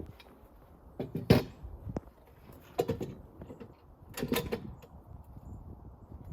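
Several sharp knocks and clatters in three short clusters, about a second in, near three seconds and just past four seconds, with no engine running.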